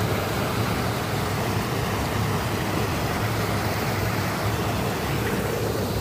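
Waterfall roaring: a curtain of water falling, heard as a steady, even rush of noise.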